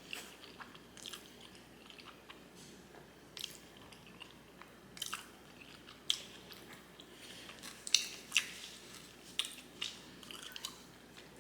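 Close-miked chewing of black bean noodles with wet mouth and lip smacks, in an irregular run of sharp clicks. The loudest smacks come about eight seconds in.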